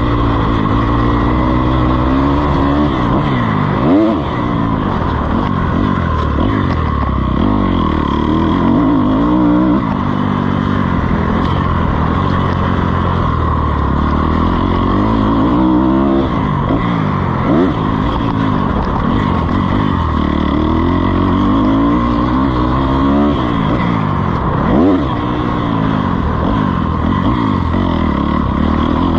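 Dirt bike engine on a motocross track, its revs climbing and dropping again and again as the rider accelerates, shifts and backs off. Sharp rev blips come about four seconds in, near the middle and near the end.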